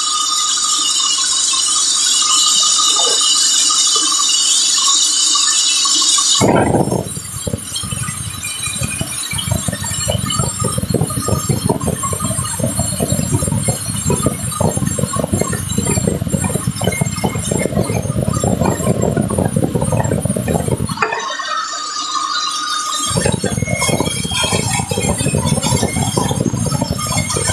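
Sawmill saw cutting through a large teak log: a loud, continuous mechanical grind. It shifts abruptly between a high hiss with a steady whine and a lower, dense, rapid rattle, changing about six seconds in and twice more near the end.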